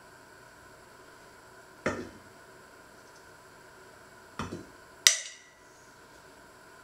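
Plums being halved and pitted by hand: a dull knock about two seconds in and a double knock a little later. Then a plum stone drops into a stainless steel bowl with a sharp clink that rings briefly.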